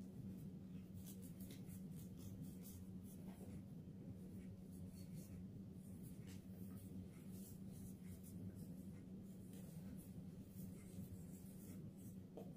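Reformed gym chalk crumbling and crunching as it is squeezed and broken in the hands, with loose chalk powder rubbing between the fingers. Quiet, with many small scattered crackles over a steady low hum.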